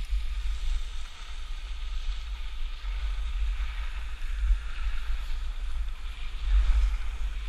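Wind buffeting the microphone of a skier's camera while skiing downhill: uneven low rumble, with the steady hiss of skis sliding over the snow, a little louder near the end.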